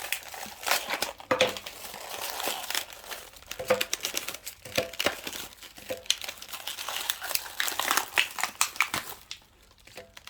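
Packaging being unwrapped and crumpled by hand: dense crinkling and crackling of wrapping, dying away briefly near the end.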